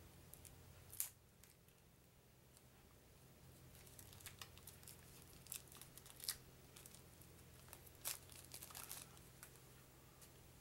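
Faint crinkling and crackling of plastic shrink wrap being peeled off a small deck of cards, in scattered sharp crackles; the loudest are about a second in and around six and eight seconds in.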